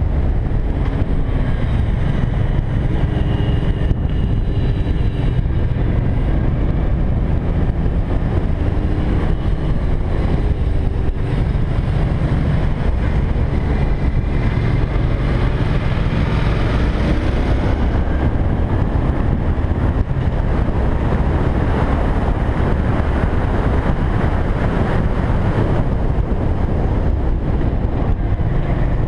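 Motorcycle engine running at road speed, its note rising and falling through the bends, with wind rushing over the microphone.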